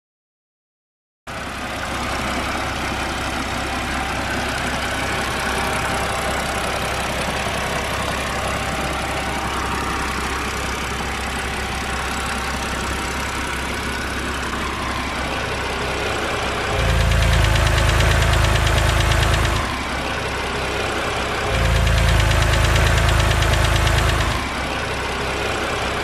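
BMW N52 straight-six engine idling steadily after the free fix for its hydraulic-lifter tick. The sound starts about a second in and gets louder twice, for two to three seconds each time.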